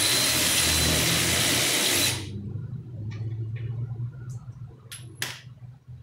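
Air-powered wrench running in one burst of about two seconds, a loud steady hiss, as it drives a bolt on the tractor's track mount; a few light metal clicks of tools follow.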